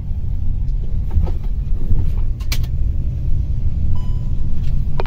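Car interior while driving: a steady low rumble of engine and road noise heard from inside the cabin, with a few faint clicks.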